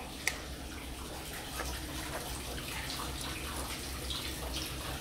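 Water running steadily, with a single sharp click shortly after the start.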